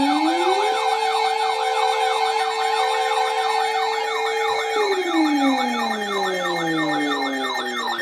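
Several sirens sounding together: one winds up in the first second, holds a steady pitch and then winds down from about five seconds in, over a fast, steadily repeating yelp and a higher warble.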